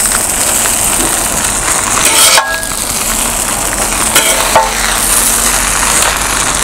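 Two metal kothu blades chopping rapidly on a hot flat iron griddle, a fast metallic clatter with brief ringing clinks, over the steady sizzle of kothu roti frying.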